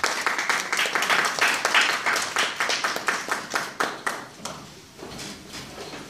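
Small audience applauding, the clapping thinning out and fading away about four to five seconds in.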